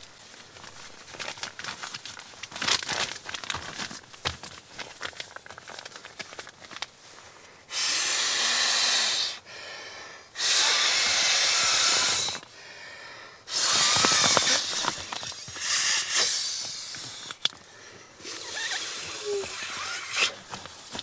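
Inflatable sleeping mattress being pumped up: small handling rustles and clicks, then about five long rushes of air, each a second or two long, starting about eight seconds in.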